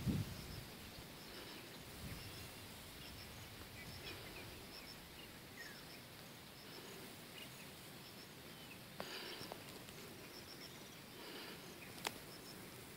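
Faint outdoor ambience of insects and birds, with small high chirps coming in little groups of two or three over and over. A low thump right at the start and a sharp click near the end.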